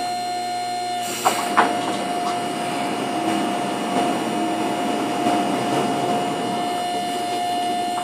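EZ Boardwalk Jr. sawmill head running steadily on its gasoline engine as a homemade hydraulic feed drives it along the track, with a constant whine over the engine. Two short clicks come about a second and a half in.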